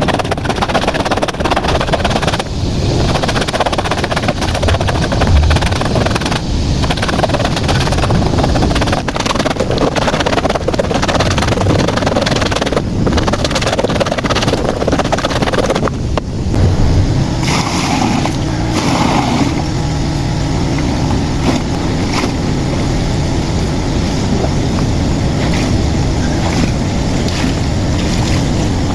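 Water and clothes sloshing loudly as they are agitated with a homemade plastic plunger washer, with brief pauses between spells of agitation.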